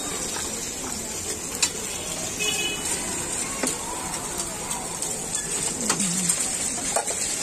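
Chicken chaap pieces sizzling in oil on a large flat iron griddle, a steady high hiss, with a few sharp clicks of a metal spatula.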